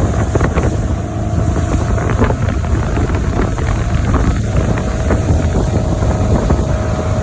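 Motorboat engine running steadily underway, a constant low rumble, with wind buffeting the microphone.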